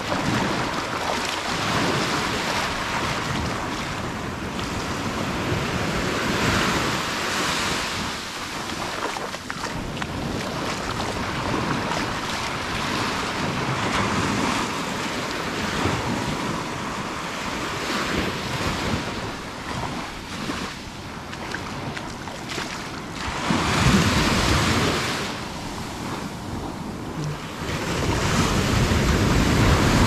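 Small ocean waves breaking and washing up over the sand at the water's edge: a continuous wash of foam that swells and ebbs, with louder surges as waves break about three-quarters of the way in and again near the end. Wind buffets the microphone.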